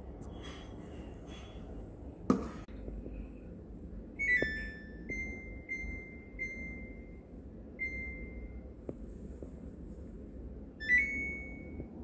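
Samsung washing machine control panel beeping. A sharp thud about two seconds in, then a short falling three-note chime, four single beeps as the Spin button is pressed to step through spin speeds, and a rising three-note chime near the end.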